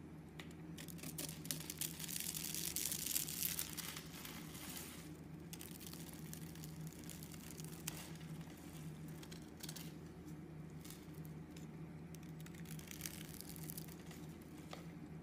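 Utility-knife blade cutting through a bar of white soap scored into tiny cubes, the cubes breaking off with dry crackling and crunching. The crackling is densest in the first few seconds, then comes in scattered bursts.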